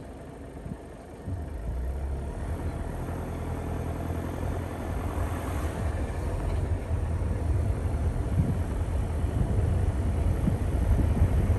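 A vehicle engine running steadily with a low rumble, stepping up about a second in and growing louder.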